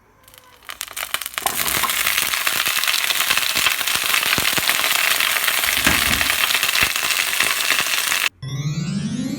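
Meat-wrapped okra sizzling and crackling as it fries, building up over the first second and a half, then staying loud and dense. Near the end it cuts off abruptly and keyboard music with rising tones begins.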